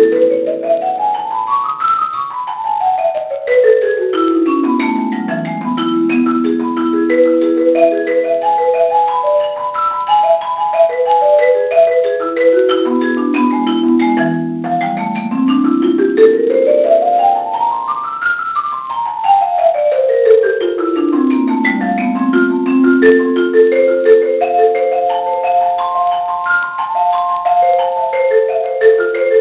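Marimba playing fast three-octave major scales, up and back down, each followed by its arpeggio, in two rounds. The notes are evenly struck and ring briefly.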